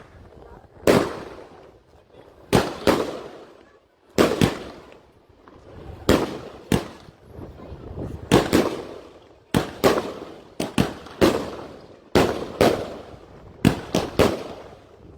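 Fireworks going off: about eighteen sharp bangs at irregular intervals, each with a short fading echo, coming faster in the second half.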